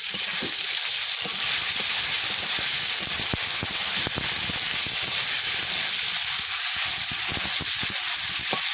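Potatoes frying in hot oil in a pan, with ginger and cumin paste just added, sizzling steadily with frequent small crackles and pops.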